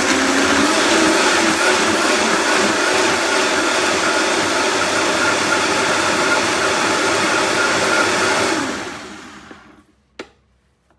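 Vitamix blender running, blending a jar of raw vegetable soup with a steady loud whir; it is switched off about eight and a half seconds in and spins down to silence over about a second. A single sharp click follows shortly after.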